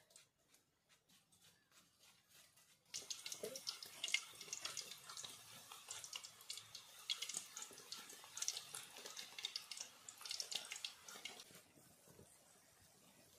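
Banana slices frying in hot oil: a dense sizzle and crackle that starts suddenly about three seconds in and drops back to a faint sizzle near the end.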